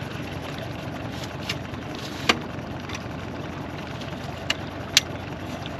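Boat's motor running steadily, with a few sharp clicks and knocks, the loudest about two seconds in and near the end.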